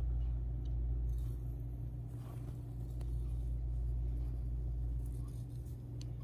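Steady low hum or rumble throughout, with faint swishing of a bamboo matcha whisk (chasen) moving through tea in a ceramic bowl.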